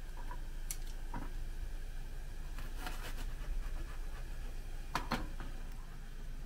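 A kitchen knife cutting komatsuna stems on a plastic cutting board: a few light taps and clicks, the sharpest pair about five seconds in, over a low steady hum.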